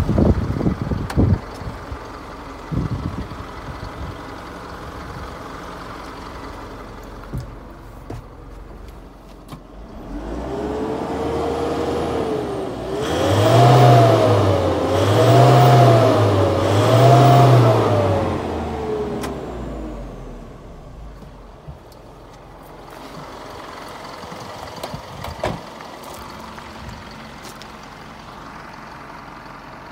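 Isuzu Elf truck engine idling, then revved in neutral three times in quick succession to nearly 4,000 rpm, each rev rising and falling, before dropping back to idle. There are a few knocks near the start.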